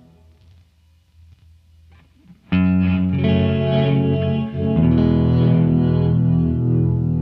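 Squier Bass VI played through the AC Noises Ricorda granular reverb pedal: a faint low hum for the first two and a half seconds, then a chord comes in suddenly and rings on as steady, sustained layered tones.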